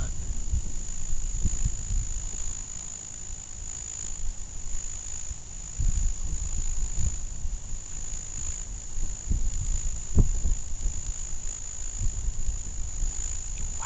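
Night insect chorus by a pond: a steady, unbroken high-pitched trill, with irregular low rumbling underneath.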